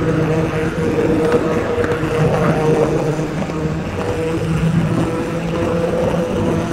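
O gauge model train running on the track: a steady electric motor hum over the rumble of wheels on the rails.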